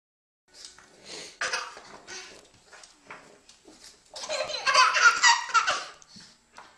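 A baby laughing, with a long, loud burst of laughter about four seconds in. Short snorts from a pug nuzzling at the baby's feet come in between.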